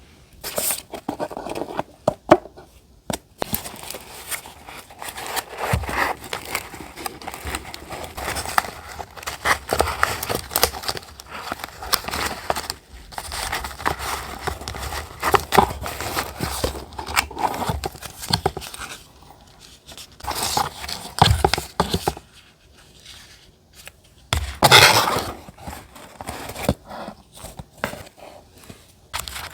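Paper collage materials handled close to the microphone: paper and stickers rustling, crinkling and scraping in irregular bursts with brief pauses. The loudest burst comes near the end.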